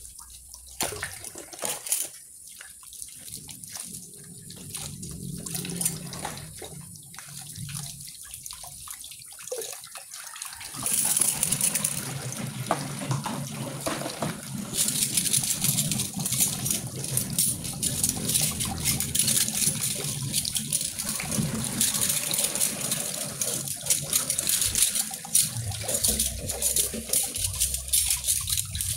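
Kitchen tap water running and splashing into a stainless steel sink as dishes and utensils are rinsed under the stream. About ten seconds in the water becomes louder and steadier, with frequent light clinks and knocks of the utensils being handled.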